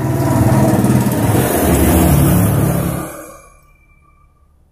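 A passing motor vehicle's engine running loud, then fading away about three seconds in.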